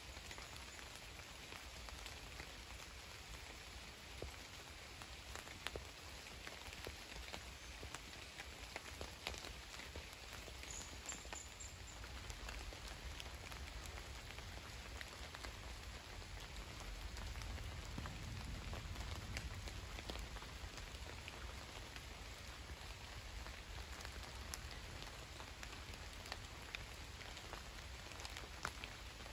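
Light rain pattering, with scattered single drops ticking at irregular moments. A low rumble swells briefly a little past the middle.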